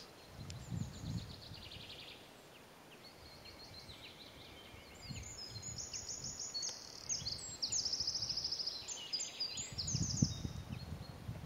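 Small songbirds singing quick, high, trilled phrases that come thicker from about halfway through, over low rustling in dry grass about a second in and again near the end.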